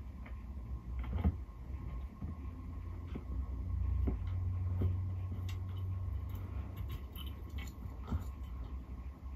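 Greek tortoise (Testudo graeca) biting at cuttlefish bone: scattered small crunches and clicks at irregular intervals, over a low steady hum.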